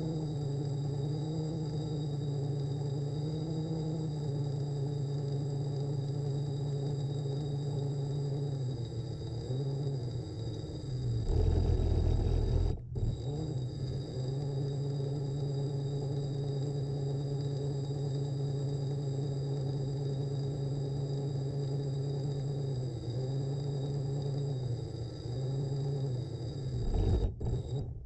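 Small electric motor running steadily with a hum and a high whine. It drops in pitch with a low rumble about eleven seconds in, breaks off for an instant, and does so again near the end.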